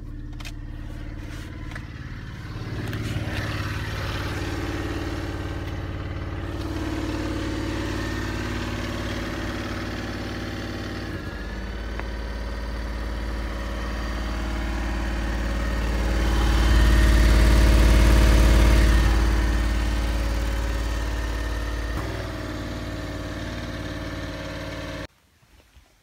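BMW i3 REx range-extender engine, a small two-cylinder petrol engine, running steadily during its maintenance cycle. It grows louder for a few seconds past the middle and stops abruptly near the end.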